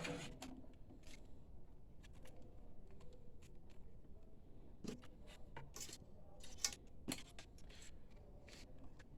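Quiet handling noise: scattered small clicks and soft scrapes as hands work on the printer's internals, unplugging a motor cable connector.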